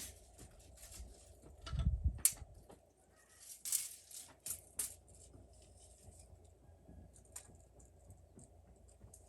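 Scattered light knocks, taps and clicks of hand work on wood and tools, with a heavier low thump about two seconds in.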